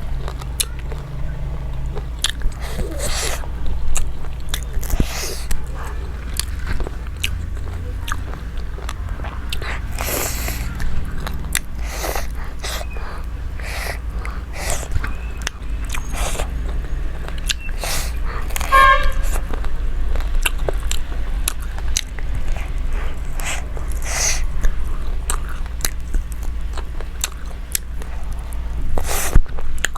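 Close-up eating sounds: chewing and biting with frequent wet mouth clicks and smacks. A brief tooting tone sounds once about two-thirds of the way through.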